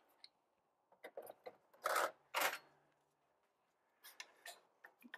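Small metallic clicks and scrapes of hand tools and parts as a bicycle's rear derailleur and its shift cable are worked loose, with two louder scrapes about two seconds in.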